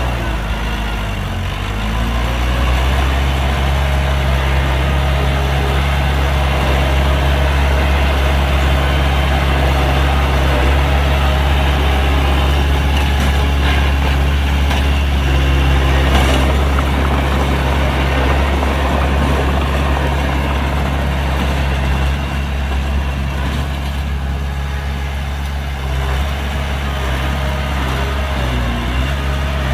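Heavy diesel engine of earthmoving machinery running steadily with a deep, even drone, with a brief knock about halfway through.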